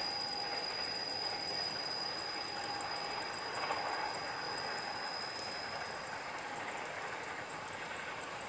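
Train passing on the railway: a steady rolling noise that slowly fades. A thin, high steady tone stops about five and a half seconds in.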